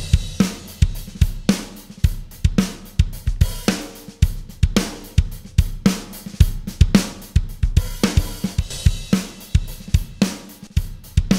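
Drum kit track with kick, snare, hi-hat and cymbals playing a steady beat through the Wes Audio NgBusComp analog bus compressor. The compressor's sidechain filter is set around 60 to 90 Hz so the kick's low end sneaks through uncompressed.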